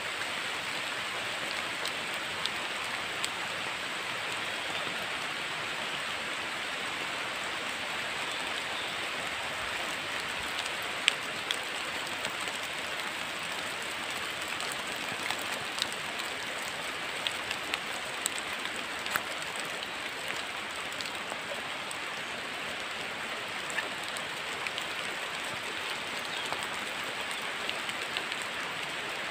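Steady rain falling through trees, an even hiss, with scattered sharper ticks of single drops, the loudest about a third of the way in.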